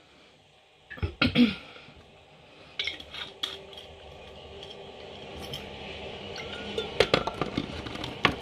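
Glassware and tableware clinking and knocking as a glass jar and glass bottle are handled at the table: a cluster of sharp knocks about a second in, then scattered clinks, over a faint hiss that slowly grows louder.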